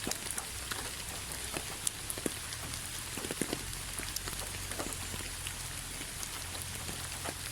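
Steady rain falling, a constant hiss with many separate drops ticking and pattering on a surface.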